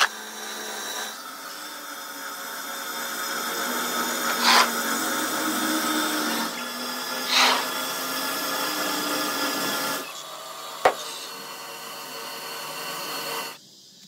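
Large diamond circular saw of a stone block cutter grinding through a granite block under a water spray, a steady machine whine that changes level abruptly several times. A few short sharp sounds stand out, the sharpest a click about eleven seconds in.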